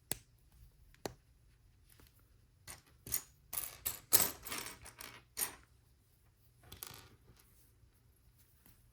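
Plastic LEGO pieces clicking and clattering as they are handled and sifted through, with a few single clicks and a denser spell of rattling in the middle.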